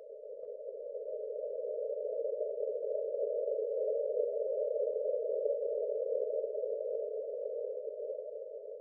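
Synthetic breathing-pace tone: a soft, low hum-like note that swells up over the first half and fades away near the end, marking one slow breath phase of a paced breathing exercise.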